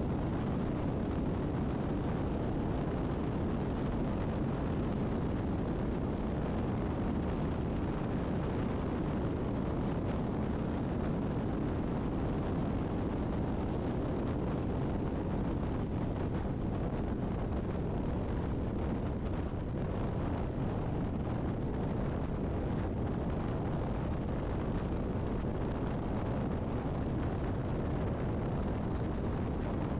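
Steady low rumble of wind buffeting and road noise on a camera riding on a vehicle at highway speed, alongside a semi-truck.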